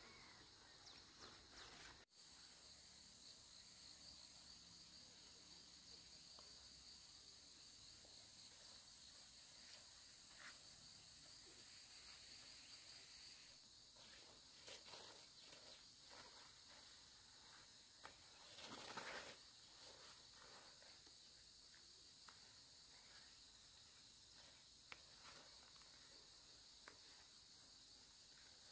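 Faint, steady high-pitched insect chorus from the surrounding fields, with a few soft clicks and rustles, the loudest a brief rustle about two-thirds of the way through.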